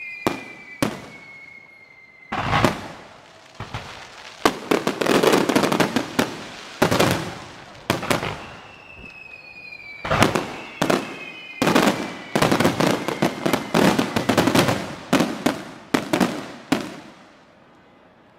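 Aerial fireworks bursting: a run of sharp bangs with stretches of dense crackling, and a faint falling whistle twice. The display stops a little before the end.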